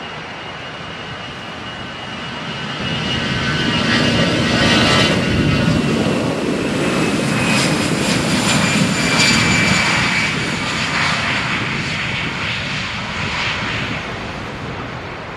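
Jet airliner passing close at takeoff, its engine noise swelling to a peak a few seconds in and then slowly fading, with a high whine over the rumble.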